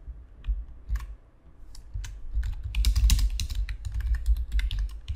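Typing on a computer keyboard: a few separate keystroke clicks, then a fast run of keystrokes from about two seconds in as a short sentence is typed.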